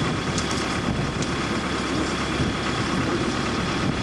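A large engine idling steadily, a constant low rumble with no change.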